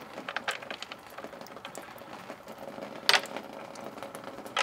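Light clicks and taps of tools and loose bolts being handled at a Sta-Rite Dura-Jet spa pump's housing between runs of a cordless drill, with two sharper knocks, one about three seconds in and one near the end.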